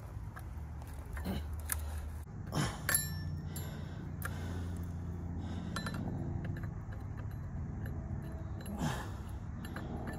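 Metal clicks and clinks of a chainsaw chain, guide bar and scrench being handled while the new chain is fitted and the bar nuts are worked, with a couple of louder clicks about two and three seconds in. A low steady hum runs underneath.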